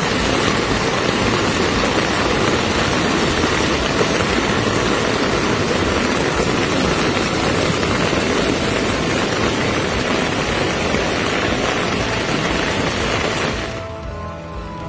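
Steady, loud rush of storm wind and heavy rain on the microphone during a typhoon, easing off near the end.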